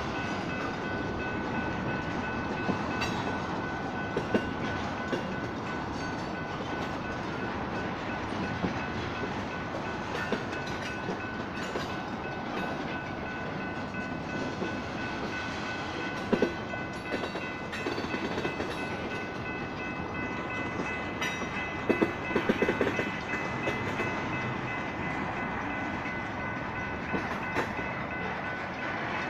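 Freight train of tank cars rolling through a grade crossing, its wheels rumbling and clacking over the rail joints, with a few louder clusters of knocks past the middle. Over it the crossing signals' bells ring steadily.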